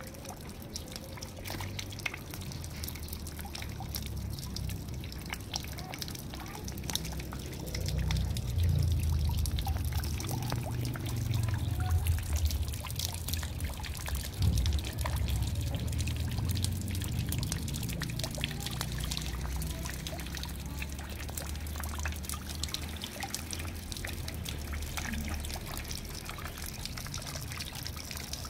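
Water splashing down into a bucket full of water, a continuous splattering trickle with many small drop splashes, over a low rumble.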